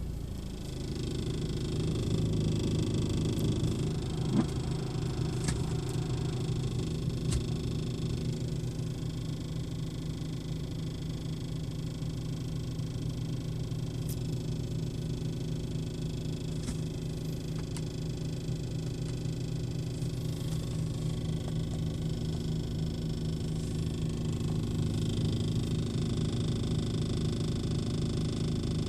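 BMW 3 Series four-cylinder diesel engine idling steadily, with a rattle at idle and a few sharp ticks now and then; the owner suspects the rattle comes from behind the dashboard.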